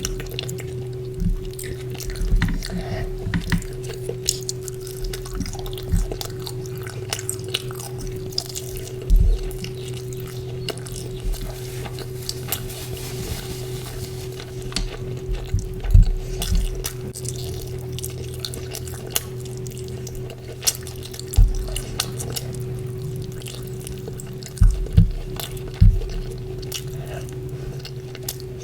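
Close-miked wet eating sounds: chewing and squishing mouthfuls of chicken curry with porota flatbread, with many small clicks and soft thumps over a steady low hum.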